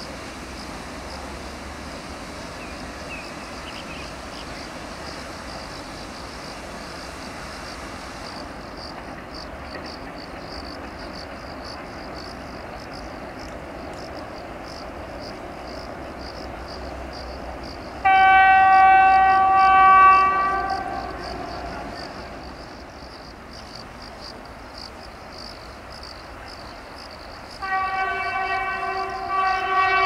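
Horn of a class 232 'Ludmilla' diesel locomotive giving two long blasts: the first, about two and a half seconds long, comes a little past the middle and dips in pitch as it tails off; the second starts near the end and is still sounding. Before the horn there is only a faint steady background with a high pulsing chirr.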